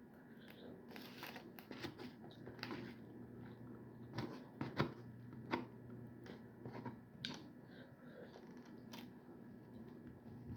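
Close-up eating sounds from a person eating pasta: soft chewing and wet mouth smacks with scattered small clicks, the loudest few about halfway through.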